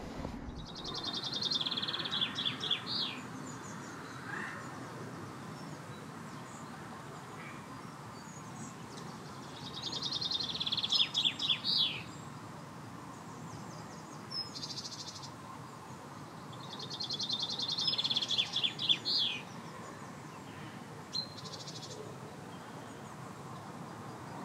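A songbird singing the same short phrase three times, about eight seconds apart. Each phrase is a fast trill that ends in a few clear downward-sweeping notes.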